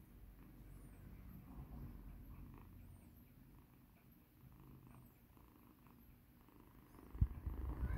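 Calico kitten purring steadily, a soft low rumble, while its neck is rubbed. A thump about seven seconds in, after which the sound is louder.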